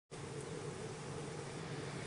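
Steady low hum with a faint buzz over an even hiss, unchanging throughout.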